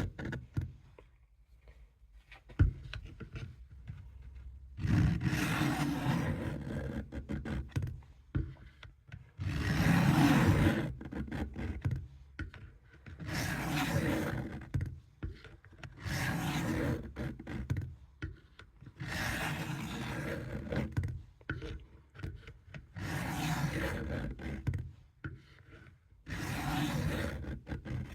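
Steel knife blade drawn across a coarse sharpening stone in repeated scraping strokes, each lasting a second or two with short pauses between them. The stroking starts a few seconds in, after a near-quiet opening.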